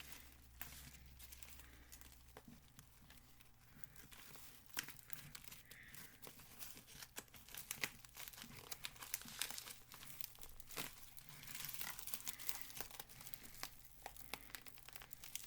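A package being wrestled open by hand: quiet, irregular crinkling, rustling and tearing of the packaging with many small clicks, over a faint steady low hum.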